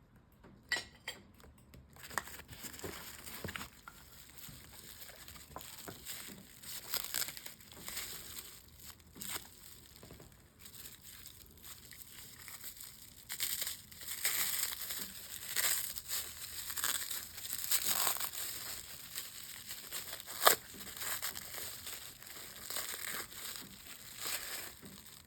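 Wrapping material crinkling and tearing as a stone slab is unwrapped by hand, in irregular rustles that get busier partway through, with one sharp knock about twenty seconds in.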